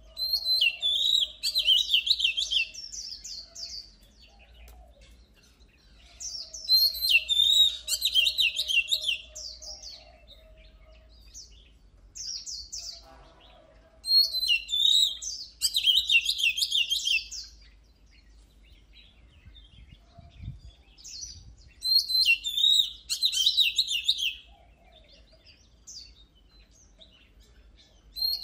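Oriental magpie-robin singing: loud bouts of rapid, varied whistled notes, each two to three seconds long, repeated about every six to eight seconds with quiet gaps between.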